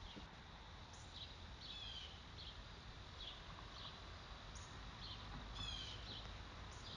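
Faint birds chirping: short high calls about once a second, some as quick runs of falling notes, over a steady low background rumble.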